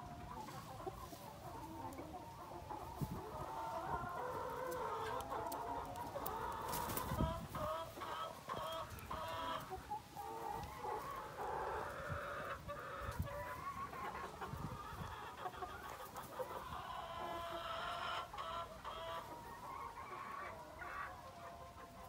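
Several hens clucking and calling on and off throughout, with a few sharp knocks and rustles, the loudest about a third of the way in.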